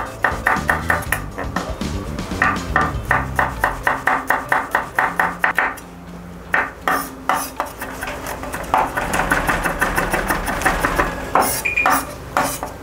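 Kitchen knife chopping rapidly on a wooden cutting board, mincing in quick runs of several strokes a second with brief pauses between runs. Background music plays underneath.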